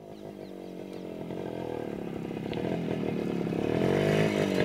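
Kawasaki Bajaj KB100's two-stroke single-cylinder engine running as the motorcycle rides up close, growing steadily louder. Its pitch dips and rises again with the throttle near the end.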